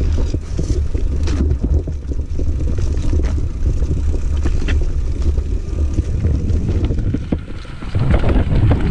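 Mountain bike riding down dirt singletrack: a steady low rumble of wind on the microphone and tyre noise, with scattered clicks and rattles from the bike, louder near the end.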